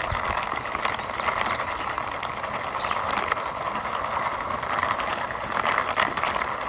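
Small plastic wheels of a toy car pushed by hand along a rough concrete wall top: a steady gritty rolling noise with small clicks.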